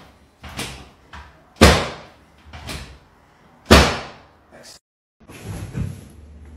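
Chiropractic table's drop section slamming down as the chiropractor thrusts on the pelvis: loud clacks about two seconds apart, with softer knocks between them as the table is set again. The adjustment is meant to free a stiff sacrum and pelvis. After a short break near the end there is faint shuffling.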